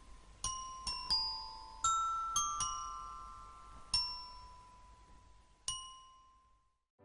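Music: a slow run of single struck, bell-like notes, about eight in all, each ringing and fading away, the last one dying out near the end.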